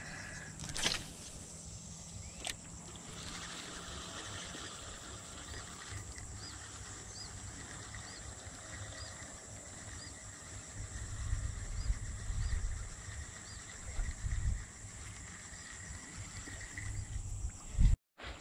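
Tropical outdoor ambience: a steady high-pitched insect drone, with a short chirp repeated over and over for a few seconds in the middle. Low rumbles hit the microphone in the second half, and a couple of light clicks come near the start.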